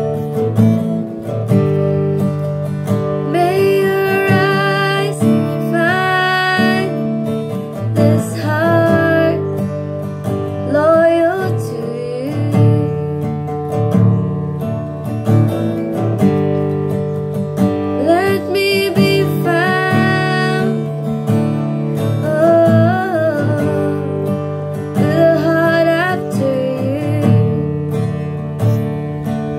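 Worship music: an acoustic guitar strummed under a voice singing a melody in long, wavering phrases.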